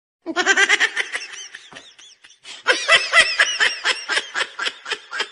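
A person laughing: a fast run of high-pitched giggles that breaks off briefly about two seconds in, then picks up again.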